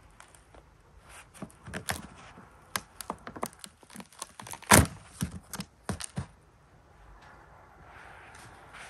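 A string of short taps, clicks and knocks from hands handling paper rolls and frozen eggs on a plastic-covered table, with one louder thunk nearly five seconds in. The handling stops after about six seconds, leaving a faint steady hiss.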